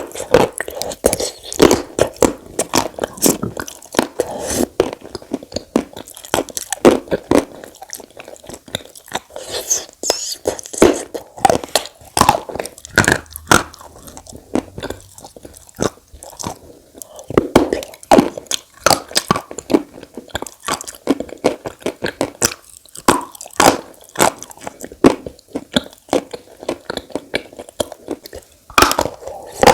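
Close-miked chewing of chalk with Turkestan clay paste: a dense, irregular run of sharp crunches and bites as the chalk breaks up in the mouth.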